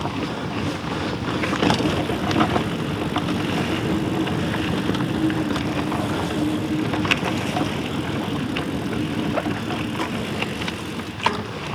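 Mountain bike rolling along a dirt singletrack trail strewn with pine straw: steady tyre and trail noise with scattered clicks and rattles from the bike.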